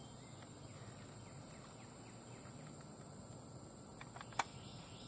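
Steady high-pitched drone of insects. About four seconds in come a couple of small clicks and one sharp click from the rifle being handled.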